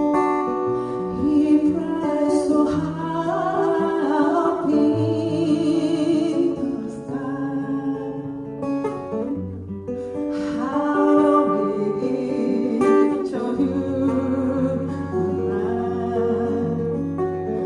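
Acoustic guitar playing with a voice singing a slow song, a home cover performance.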